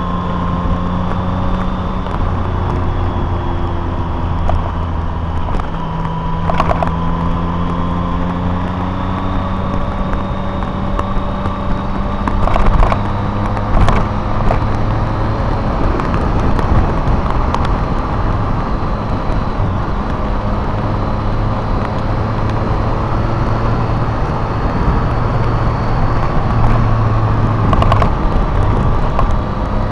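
A car engine running steadily while driving, its pitch drifting slowly up and down with engine speed over road noise, with a few sharp knocks around the middle.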